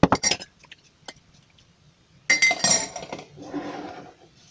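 Glassware and a metal tea strainer clinking: several sharp clinks at the start, a single tick about a second in, and a loud clattering rattle a little past two seconds, followed by a softer scraping sound.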